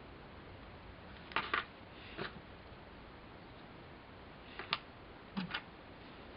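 Small resin model-kit parts being handled in a cardboard box: a few light clicks and taps at intervals as pieces are picked up and set down.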